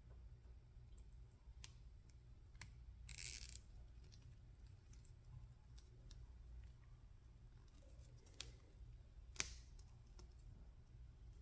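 Quiet handling of small plastic zip ties and a battery cable: a few light clicks, and one short rasp about three seconds in.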